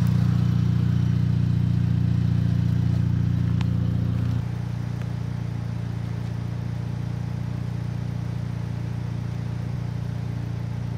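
Idling engine of a turbo-swapped (IS20) Volkswagen MK6 Jetta GLI: a 2.0-litre turbo four running steadily at idle. It drops in level about four seconds in and then keeps running evenly.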